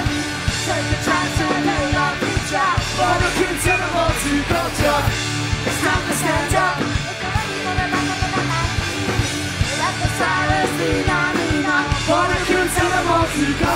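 Live punk band playing loud through the PA, with electric guitar, bass and drums under a woman's lead vocal. The vocal is sung and shouted continuously.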